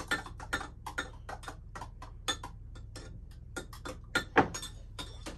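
A utensil clicking against a small glass bowl of melted butter as it is stirred: a quick, fairly regular run of light clinks, about four a second, with a few louder strikes near the end.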